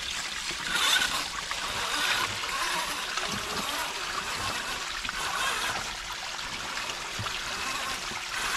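Shallow creek water trickling and running steadily over flat rock ledges.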